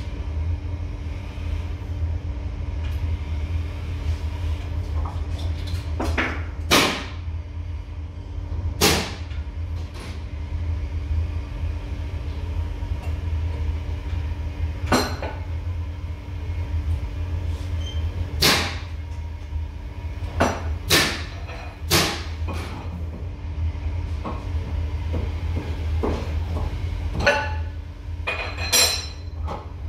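A steady low machine hum in a woodworking shop, with about ten sharp metal clanks and knocks scattered through it as a spindle moulder is set up by hand, its fence and tooling being adjusted.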